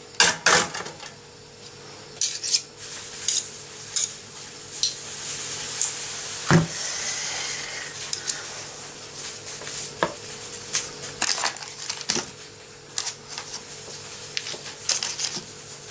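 Metal spoon scraping and knocking against a tub and a plastic mixing bowl while scooping out lard: an irregular string of clicks and taps, with one louder knock about six and a half seconds in. A faint steady hum sits underneath.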